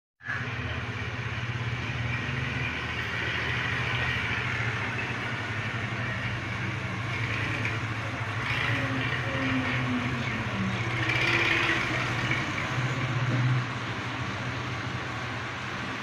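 Steady low engine hum, as of a motor vehicle running nearby, growing a little louder for a couple of seconds past the middle.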